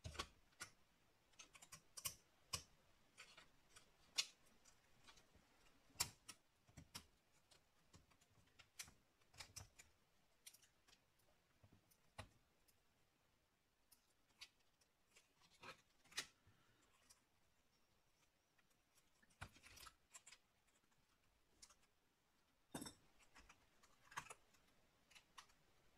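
Faint, irregular small clicks and taps of laptop parts being handled and fitted by hand during reassembly, scattered and unevenly spaced with a quieter stretch in the middle.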